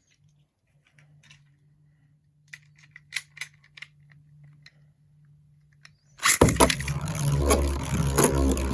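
Faint clicks of Beyblade parts being handled. About six seconds in, a sudden loud, continuous metallic rattle starts: spinning Beyblade tops clashing in the stadium.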